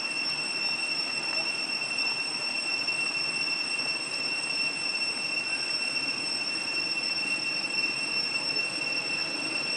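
Steady high-pitched whine, one unchanging tone with a fainter one about an octave above it, over a constant hiss.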